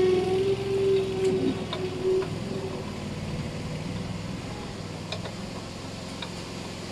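Steady low engine drone in the background, with a few light clicks and taps of parts being fitted: air filters going onto an air compressor's pump head.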